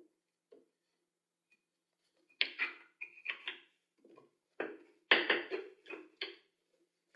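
Wooden frame parts of a homemade tricopter being fitted together by hand: a series of light knocks and clicks of wood on wood and a loose screw, starting about two and a half seconds in.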